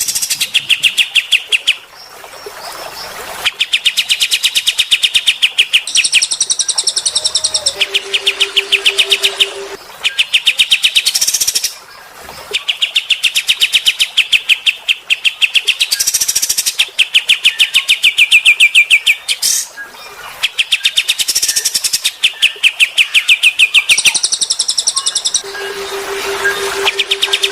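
Songbird calling in loud rapid trills, strings of fast-repeated notes in bursts of one to three seconds with short breaks, some trills pitched higher than others. A steady low tone sounds underneath for a couple of seconds a few times.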